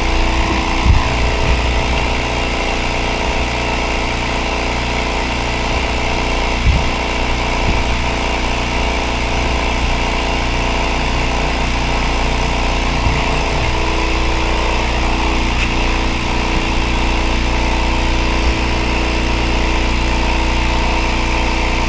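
Electric vacuum pump of a woodturning vacuum-chuck system running steadily under vacuum, an even mechanical hum. A few light knocks come over it from handling the fittings.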